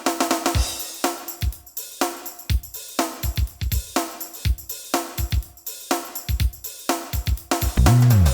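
Roland JV-880 synthesizer, run as a software emulator, playing a factory demo song: a drum-kit groove with kick, snare, hi-hat and cymbal under synth parts, with the kick about once a second. Near the end a low sound falls in pitch.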